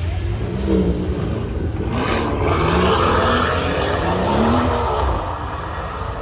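Car engine accelerating, its note gliding up and down and surging louder about two seconds in.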